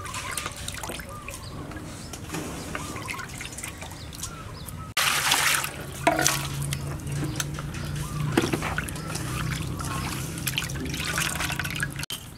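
Water trickling and dripping from freshly rinsed river shrimp in a strainer. About five seconds in it changes abruptly to a louder pot of water at a rolling boil, bubbling, with shrimp dropped into it near the end.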